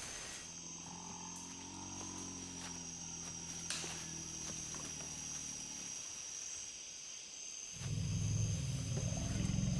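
Bornean pygmy elephants rumbling: a long, low rumble, then a louder, throbbing rumble about eight seconds in. A steady high insect drone runs underneath.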